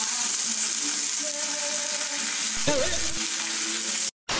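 Pork belly slices sizzling in a hot frying pan: a loud, steady frying hiss that breaks off briefly near the end.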